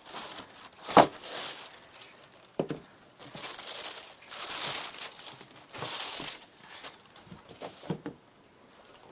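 Paper crinkling and rustling in irregular handfuls, with a few sharp knocks, the loudest about a second in, as a sneaker box and its wrapping paper are handled during unpacking.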